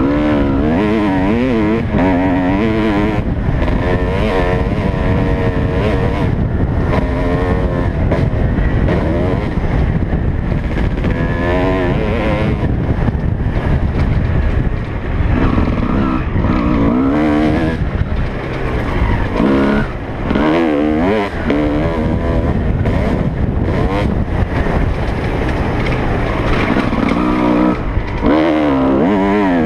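Motocross dirt bike engine revving hard as the bike is ridden around a dirt track, heard from the rider's helmet; its pitch keeps rising and falling with throttle and gear changes, and the throttle is briefly shut off a few times about halfway through.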